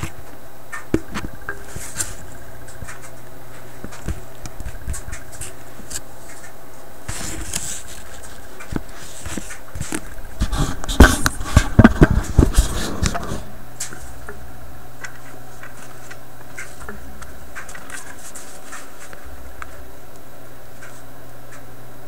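Small clicks and taps of fingers handling a small plastic switch and its metal clips, over a steady low hum. From about ten to thirteen seconds comes a burst of loud knocks and rubbing as the camera itself is handled.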